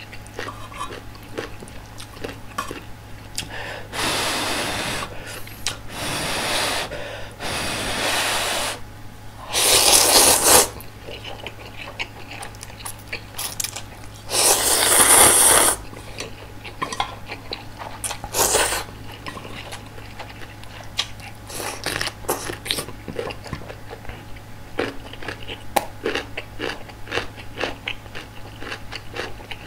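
Instant ramyeon noodles slurped in long noisy pulls, the loudest about ten and fifteen seconds in, then chewed with small wet mouth clicks, close to the microphone.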